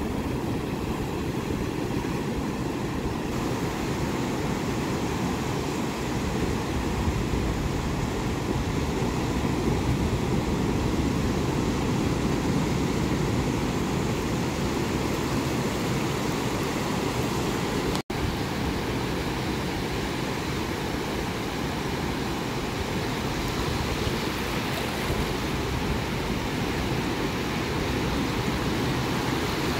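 Ocean surf breaking and washing up a sandy beach, a steady rushing roar with wind on the microphone. The sound cuts out for an instant about two-thirds of the way through.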